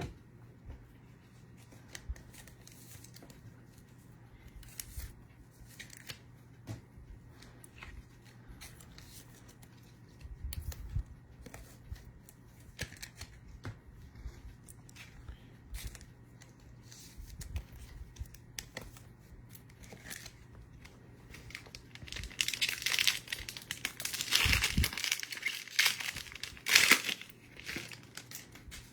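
Scattered light handling clicks, then a trading card pack wrapper being torn open and crinkled, loudest from a little past two-thirds of the way through to near the end.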